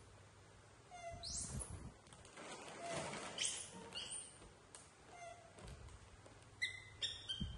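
Baby macaques giving short, high-pitched squeaks and chirps, several sweeping sharply upward in pitch, with a quick cluster of squeaks near the end. Plastic snack packets rustle in the middle.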